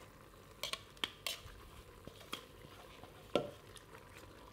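Metal kitchen tongs clicking and knocking against a stainless steel stockpot as chicken legs are lifted in: a handful of short, light clicks spread through a few seconds, the loudest a little over three seconds in.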